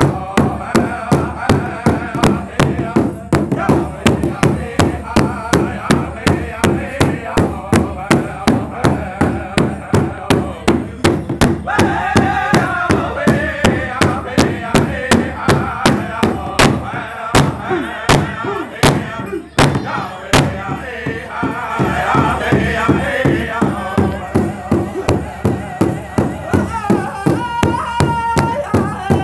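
Powwow drum group: several men beating a large hide-covered powwow drum together in a steady beat, about two to three strikes a second, while singing together over it.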